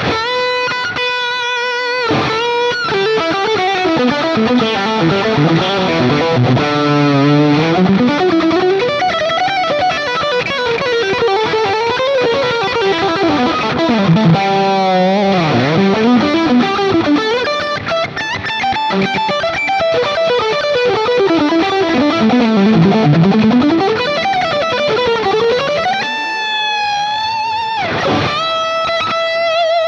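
Electric guitar freshly strung with new Ernie Ball Regular Slinky strings, playing a solo. Fast lead runs sweep up and down, then the solo settles on long held notes with vibrato near the end.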